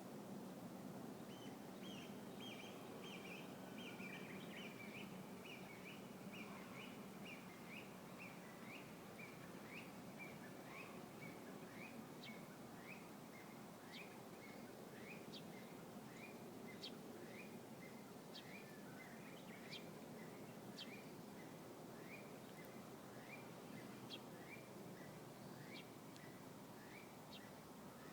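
A small songbird singing a long run of short rising chirps, about two a second, with a few higher sharp notes mixed in, over faint steady background noise.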